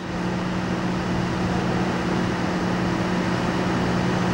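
Drilling rig machinery running: a steady drone with a constant low hum.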